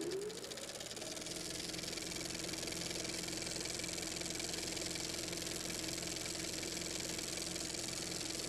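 Small motorcycle engine rising in revs over about the first second, then running at a steady speed.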